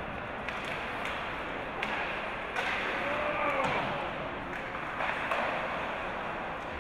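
Hockey game play in an echoing rink: scattered sharp knocks of sticks and puck, and hits against the boards, over a steady background hum. About halfway through there is a brief distant shout.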